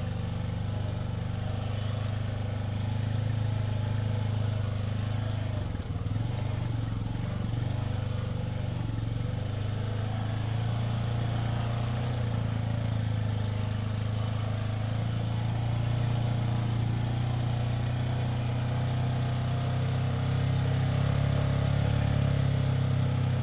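Side-by-side UTV engine running steadily as the vehicle is driven along a rough, rutted dirt trail, heard from inside the cab, getting a little louder near the end.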